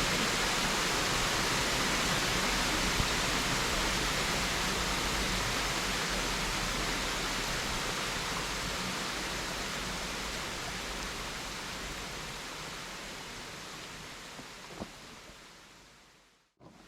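Steady rushing of a small waterfall, fading away to near silence near the end before rising again.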